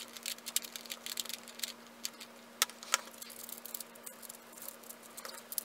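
Plastic speed cubes being scrambled by hand, first a Guanlong Square-1 and then a 3x3: an irregular run of quick sharp clicks and clacks as the layers are turned. A faint steady hum runs underneath.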